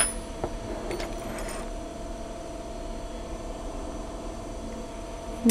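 A few faint metallic clicks as the cast side frame and mechanism of a 1917 Monroe mechanical calculator are handled in the first second or so, over a steady hum.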